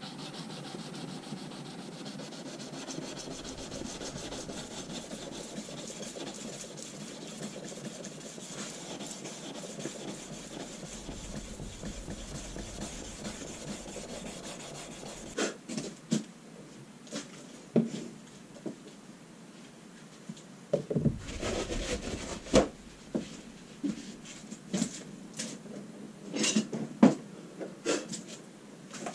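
Hand sanding of a Damascus steel knife blade: abrasive paper rubbed steadily back and forth along the blade's flats. About halfway through, the steady rubbing gives way to a string of sharp clicks and knocks as the blade and tools are handled.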